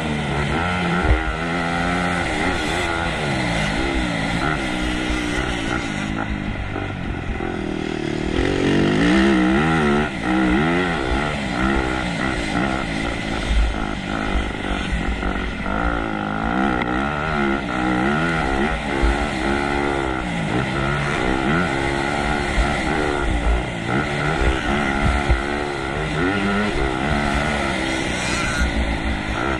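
Yamaha YZ250F's single-cylinder four-stroke dirt bike engine, revving up and dropping back again and again as the throttle is opened and closed, its pitch rising and falling many times.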